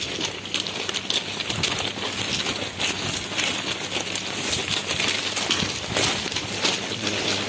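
Footsteps of several people crunching over substation gravel, an irregular run of short crunches.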